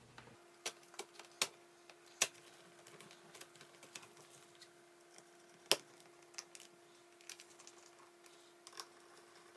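Irregular light clicks and taps of a laptop's plastic back cover and small screws being handled and set in place during reassembly. The sharpest knocks come about two seconds and about six seconds in, over a faint steady hum.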